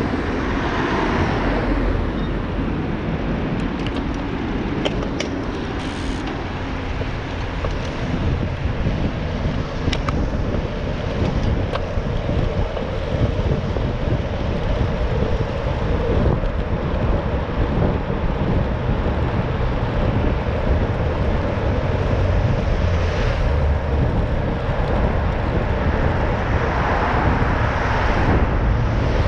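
Steady wind rumble on a bike-mounted action camera's microphone while cycling along a busy road, with motor traffic running alongside. The traffic noise swells briefly at the start and again near the end.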